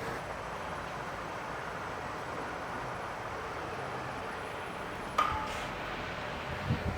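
Steady low workshop hum, with one metallic clink about five seconds in that rings briefly, and a couple of soft knocks near the end, as a steel pump rotor hanging from a crane is started into its stator.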